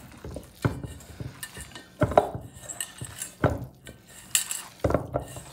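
Hands mixing raw ground beef and egg yolks in a stainless steel mixing bowl: irregular knocks and clinks as the hands and meat hit the metal bowl, with a soft wet churning between them.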